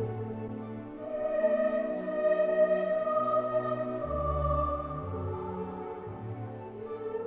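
Slow background music of long held notes over changing bass notes, with a choral or organ-like sound.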